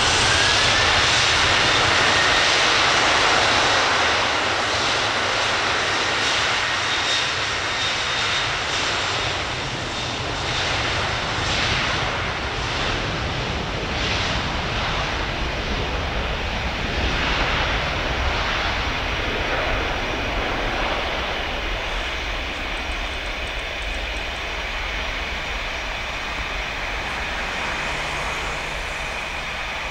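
Boeing 737-800's twin jet engines at takeoff power during the takeoff roll: a loud, steady roar with a high whine at first, slowly fading as the jet accelerates away down the runway.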